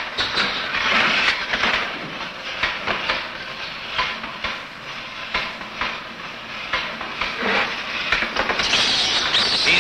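Loud mechanical clattering and clicking from a fright device with moving mechanical parts, built to scare an infant monkey, over a steady hiss. A louder high-pitched noise joins near the end.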